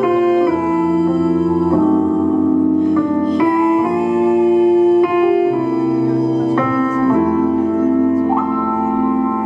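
Instrumental music: a keyboard playing slow, sustained chords, changing about every second or so.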